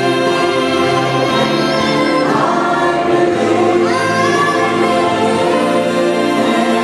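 Choir singing a gospel song over steady held chords, with a voice sliding up in pitch around the middle.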